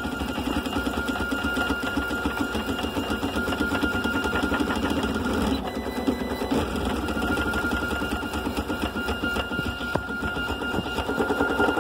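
GARCAD 3D printer printing at 400 mm/s with 16 m/s² acceleration: its stepper motors buzz and whine as the hot-end carriage darts rapidly back and forth. A steady high whine drops out for about a second midway, then comes back.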